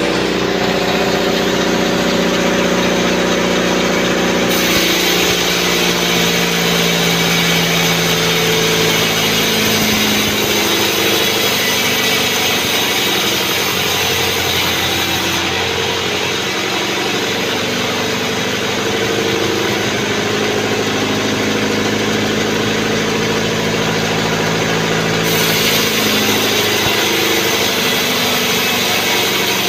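Engine-driven sawmill band saw running steadily, its blade cutting through an albasia (sengon) log with a high hiss in two long passes: from about four seconds in until about halfway, and again near the end.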